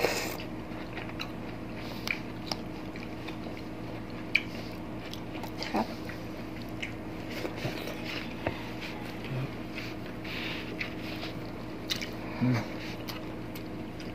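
Two people chewing food close to the microphone: short mouth clicks and smacks of eating scattered throughout, over a faint steady low hum.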